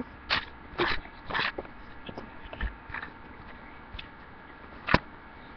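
Table knife scraping and spreading jelly on buttered toast in a few short scrapes, with a sharp click near the end.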